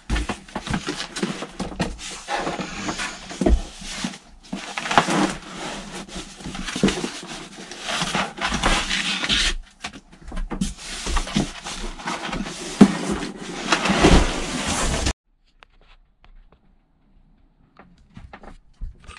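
Cardboard box and foam packing rustling and scraping, with scattered knocks, as a heavy aluminium-cased lithium battery is worked out of its box. It stops abruptly about fifteen seconds in.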